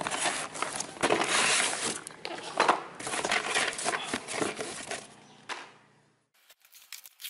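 Plastic-wrapped foam packaging crinkling and rustling as it is handled, in several loud bursts, stopping about six seconds in, followed by a few faint clicks.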